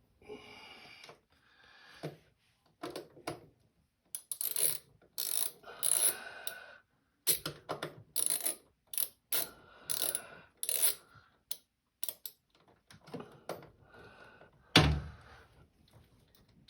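Ratcheting hand tool clicking in short irregular runs as screws are driven in by hand on a washing machine's direct-drive motor assembly. A single loud thump near the end.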